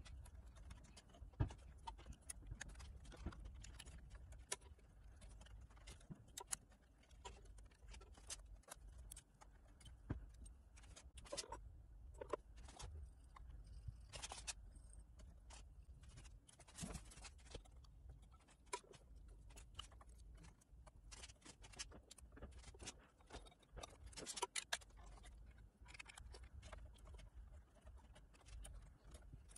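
Faint, scattered small clicks and taps of fingers handling lamp sockets, bulbs and wiring inside a McIntosh MC2205 amplifier's chassis while the panel-light bulbs are pulled out for replacement with LEDs. A few louder clicks stand out here and there.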